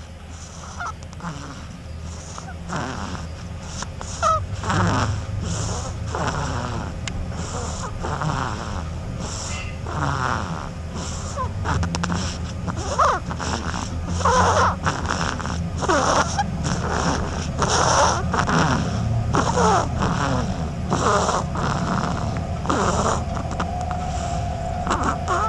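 A sleeping duckling snoring: repeated short, breathy peeps, about one or two a second, over a steady low hum.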